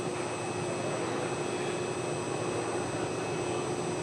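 Concrete 3D printer's pump running steadily with a constant whine, as the material line is being primed before printing.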